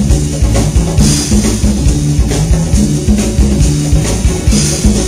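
A live band playing: a drum kit with bass drum and snare or rimshot hits over a repeating bass line and guitar.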